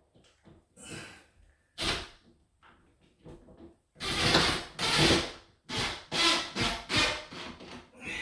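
A screw being driven into a wooden closet organizer panel: a sharp knock about two seconds in, then from about four seconds a run of short, loud grinding bursts as the screw goes in.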